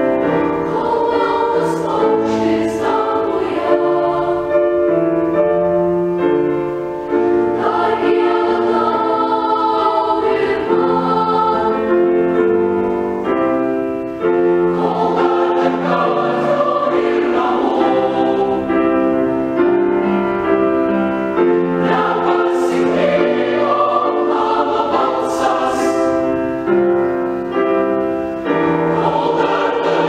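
Boys' choir singing a Lithuanian song in several-part harmony, in long held phrases.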